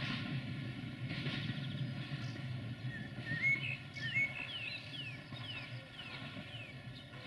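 Songbird calls: a run of short chirps, each dropping in pitch, starting about three seconds in. Under them a train's low rumble slowly fades away.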